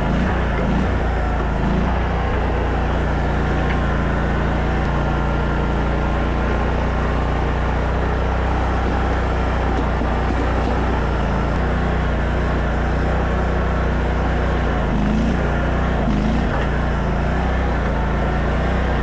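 Mini stand-up skid steer's engine running at a steady speed, holding an even pitch with no revving.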